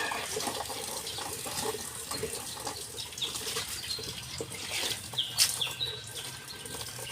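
Water splashing and sloshing, with many small clicks and a few short high chirps.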